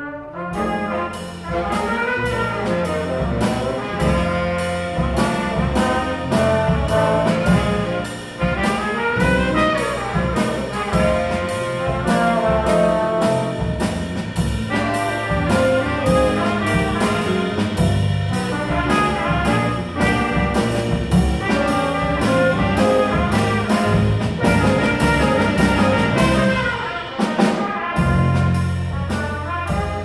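Small jazz combo playing live: trumpets and alto saxophone on the melody over piano, electric bass and drum kit, with a steady cymbal beat. The music begins abruptly at the very start.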